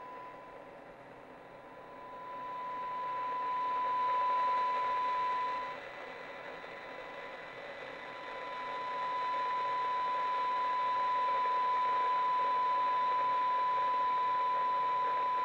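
Cobra 200 GTL DX CB radio receiving a weak FM test signal: a steady 1 kHz test tone over receiver hiss from its speaker. The tone grows louder, falls back briefly midway, then comes up again and holds as the FM discriminator coil is tuned.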